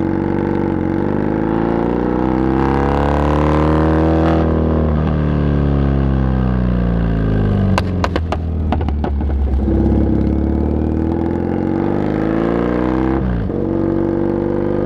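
Triumph Bonneville's parallel-twin engine running loud through aftermarket pipes with the baffles (dB killers) removed. Engine speed rises, then falls with a quick run of sharp pops about eight seconds in. It then holds steady, dips briefly near the end and picks up again.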